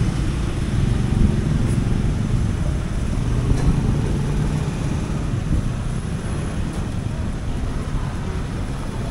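Street traffic: motor vehicle engines running close by, a steady low rumble over general road noise.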